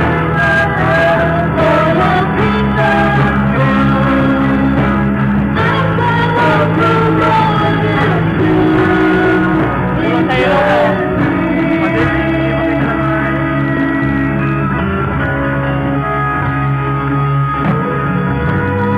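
Live praise band playing a worship song: electric guitars, bass and drums under a female lead vocal. The drum hits are thickest in the first half.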